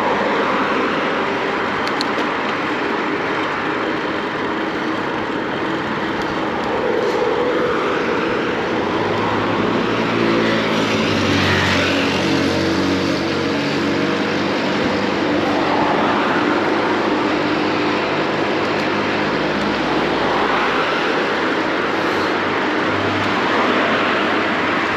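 Street traffic and rushing wind heard from a moving electric bicycle. About nine seconds in, a nearby motor vehicle's engine hum with a steady pitch joins and carries on for about twelve seconds before fading.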